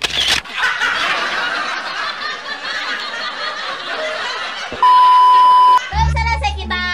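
An edited-in sound effect: a few seconds of hiss-like noise, then a loud, steady, high beep of about one second, the classic censor bleep. Music with a bass line comes in just after it.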